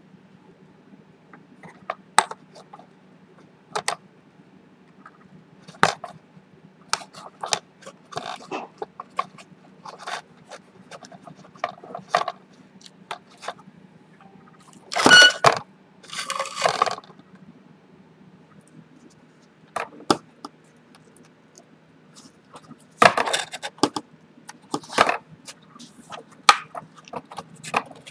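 Hand work on a foam model-aircraft wing while fitting servos and linkages: scattered sharp clicks and taps from small tools and plastic servo parts, with two short scraping rustles, one about halfway through and one near the end.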